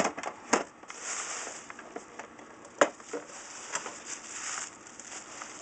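Plastic packing material (plastic bags and bubble wrap) rustling and crinkling, with a few sharp knocks of objects being handled on a glass-topped desk; the loudest knock comes about three seconds in.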